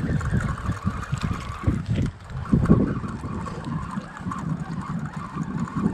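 Wind buffeting the microphone as a low, uneven rumble, with a faint steady hiss higher up.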